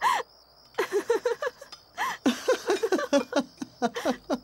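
People's voices in short bursts at the table.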